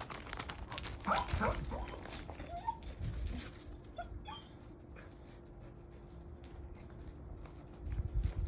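A dog whining in a few short, high, rising whimpers over the first half, then going quiet, with a few low thumps near the end.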